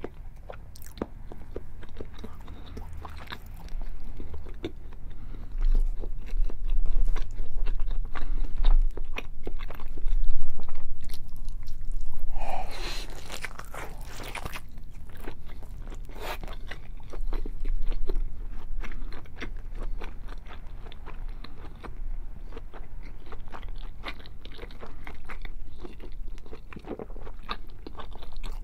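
Close-miked eating sounds: biting into and chewing a thick slab of bacon and cheese slices, with many small wet mouth clicks. The chewing comes in uneven bursts, with a louder, crackly stretch about twelve seconds in.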